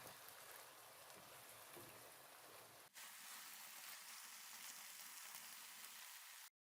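Minced meat frying in a pan, a faint steady sizzle. There is an abrupt cut about three seconds in, and the sound stops dead near the end.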